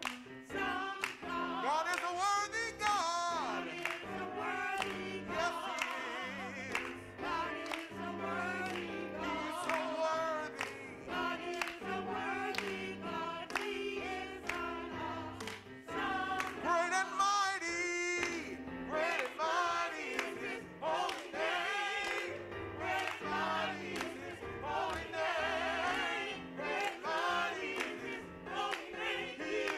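Church choir of mixed men's and women's voices singing a gospel song, accompanied by an electric keyboard holding chords underneath.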